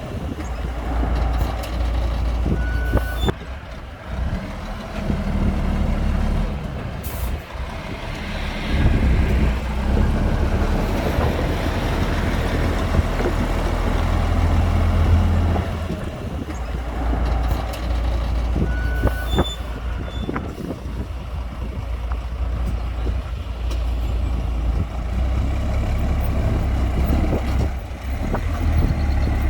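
Heavy diesel earthmoving machinery, dump truck and bulldozer, running with a deep engine rumble that rises and falls with load. Two brief high beeps, about 3 s and 19 s in, and a few short sharp sounds.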